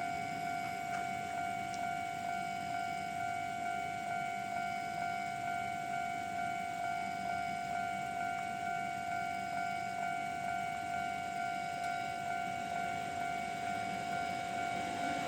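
Japanese level-crossing alarm ringing its standard electronic 'kan-kan' warning tone, an even bell-like tone repeated about twice a second, signalling that a train is approaching.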